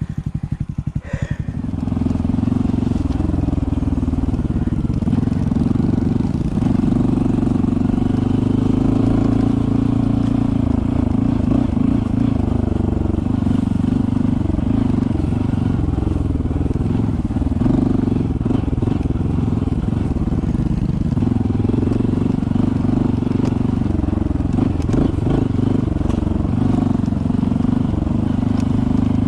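Honda CT125's single-cylinder engine running steadily under way, with small rises and falls in engine speed.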